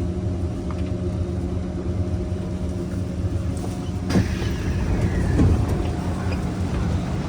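Kawasaki C151 MRT train running, a steady low rumble with a constant hum. About four seconds in there is a sharp knock, followed by a faint falling whine.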